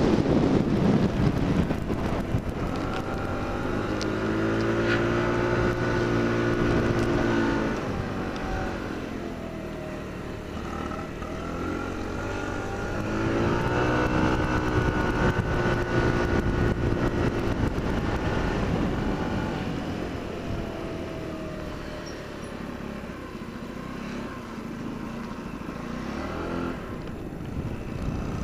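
Small 50cc moped engine revving, its pitch rising and falling twice as it accelerates and eases off, with wind buffeting the microphone at the start.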